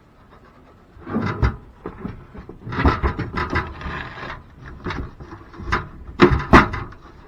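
Wooden knocks and scraping as the attic ladder unit and its shims are shifted and worked into the ceiling opening: irregular bumps and rubs starting about a second in.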